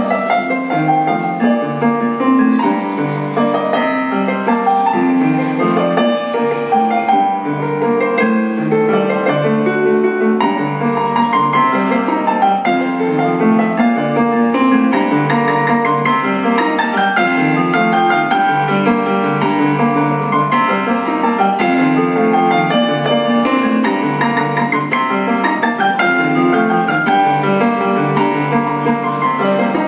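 Digital keyboard played with a piano sound: a steadily repeating low bass figure under chords and a running melody, without a break.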